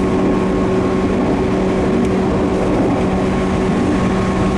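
Joetsu Line local electric train running at steady speed, heard from inside the carriage: an even rumble of wheels and running gear with a constant low hum and a fainter, higher steady whine.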